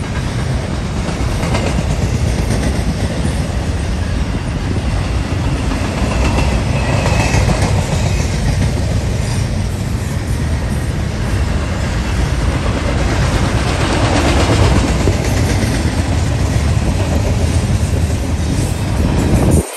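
Double-stack intermodal well cars rolling past on steel wheels: a loud, steady rumble of wheels on rail that holds without a break.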